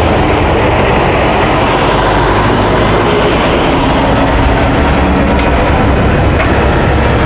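Heavy equipment engines running steadily: a loud, even noise with a strong low hum.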